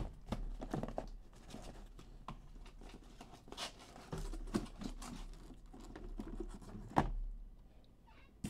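Cardboard shipping case being handled and slid up off a stack of hobby boxes: scraping, rustling and light knocks of cardboard on cardboard, with a sharper knock about seven seconds in.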